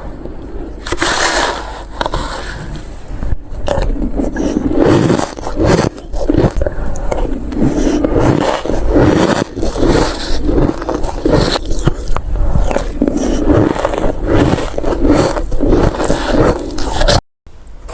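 A person biting and crunching ice close to the microphone, bite after bite in quick succession; it stops suddenly near the end.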